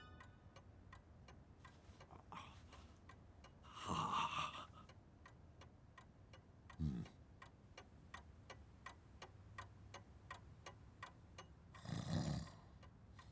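Clock ticking steadily, about two ticks a second, with a few brief louder sounds around four seconds in, midway and near the end.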